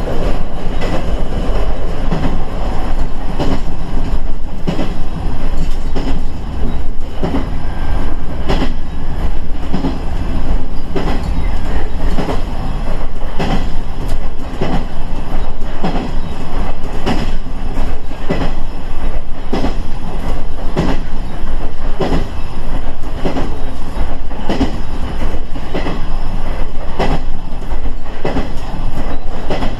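KiHa 110 series diesel railcar running along the line: a steady diesel and rolling rumble with a continuing series of wheel clacks over rail joints.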